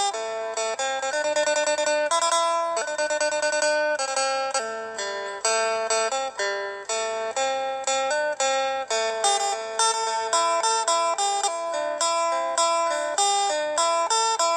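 Background music: an instrumental melody on a plucked string instrument, with a run of quickly repeated notes early on.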